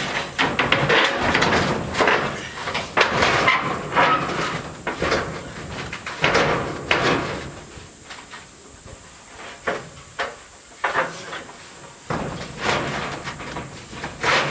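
A corrugated metal siding panel being handled and set against a wooden wall frame: the sheet rattles and scrapes in loud, irregular bursts through the first half, then gives a few sharp knocks as it is held in place.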